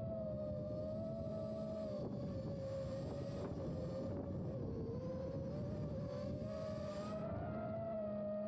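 Emax Babyhawk 2 HD quadcopter's brushless motors and propellers whining in flight, the pitch wavering with throttle: it sags about halfway through and climbs again near the end. Airy rushing hiss rises and falls over the whine in the middle stretch.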